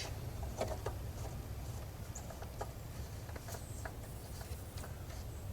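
Faint scattered clicks and light taps, like small parts being handled, over a low steady hum.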